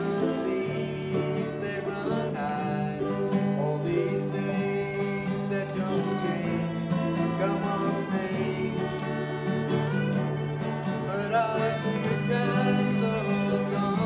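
A small folk ensemble playing a slow song: an acoustic guitar strummed steadily with a banjo, and a fiddle and other melody instruments carrying a wavering tune above.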